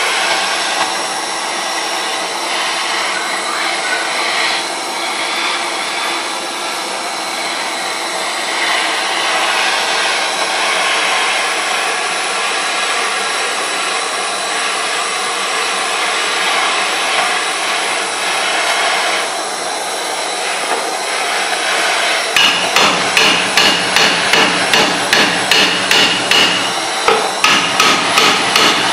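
Handheld gas torch hissing steadily as it heats a seized, rusted brake drum. About 22 seconds in, hammer blows on metal begin, about three a second, with a short pause near the end.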